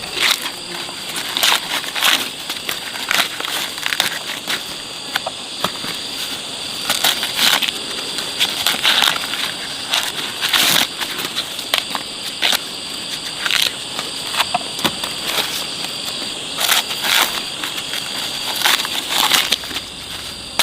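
Irregular crunching and crackling of dry plant matter being handled, over a steady high insect buzz.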